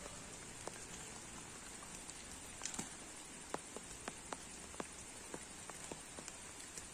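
Steady rain hiss with scattered sharp ticks and pats.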